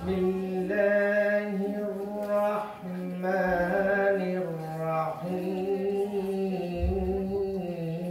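A man reciting the Quran in a slow, melodic chant, holding long drawn-out notes that step between a couple of pitches, with short breaks for breath.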